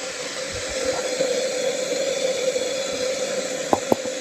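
Water boiling hard in an electric kettle: a steady hissing rush with a low hum under it, and two sharp clicks near the end.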